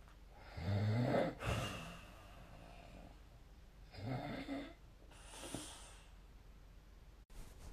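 A person snoring: a pitched snore about half a second in, the loudest, and another about four seconds in. After the second one comes a soft, airy puff of breath, the cute "pusuu" sound.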